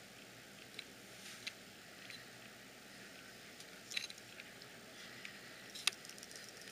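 Small plastic clicks and taps from handling a Kestrel 4000/4500 weather meter with its impeller fitted, then one sharp snap near the end as the hinged plastic impeller cover is clicked shut.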